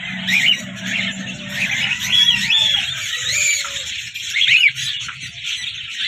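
Parakeet chicks in a nest box calling, with many short high squeaky calls repeated one after another.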